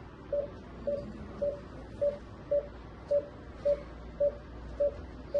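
Bedside patient monitor giving its pulse beep: short, evenly spaced mid-pitched beeps about every half second, one per heartbeat.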